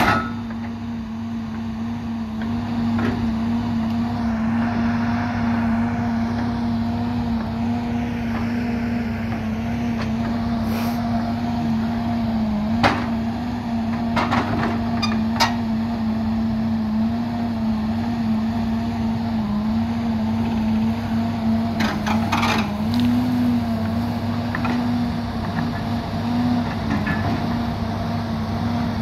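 Heavy-equipment diesel engine running steadily, dipping and rising slightly in pitch under load. A few sharp metal clanks sound in the middle stretch as a grapple arm pulls at the steel hulk of a forestry machine being dismantled.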